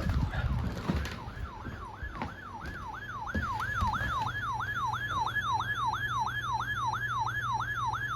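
Electronic siren-style alert tone sweeping quickly up and down, about three times a second, heard through a television broadcast ahead of a severe thunderstorm warning; it grows clearer a couple of seconds in, over a steady low hum.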